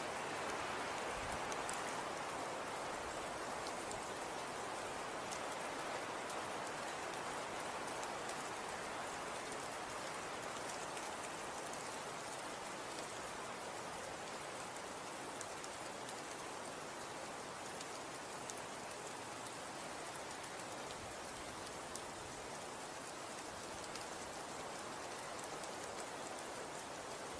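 Snow falling and pattering on surfaces: a steady, even hiss with faint, scattered small ticks.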